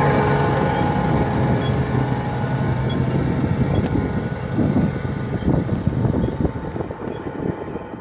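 Tractor engine running steadily under load as it pulls a subsoiler through the soil, its hum fading as the tractor moves away.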